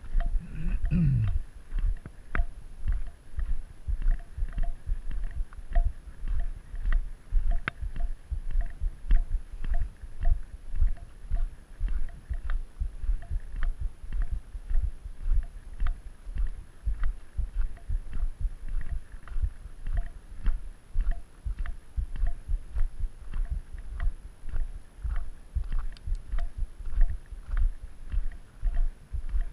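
Footsteps crunching on a gravel road at a steady walking pace, about two steps a second, each with a dull thump, and a faint light tick in time with the steps. About a second in, a short falling sound.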